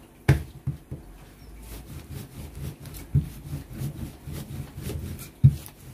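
Samosa dough being rolled out with a rolling pin on a table: an uneven run of low rolling strokes, with three sharp knocks, one shortly after the start, one about three seconds in and the loudest near the end.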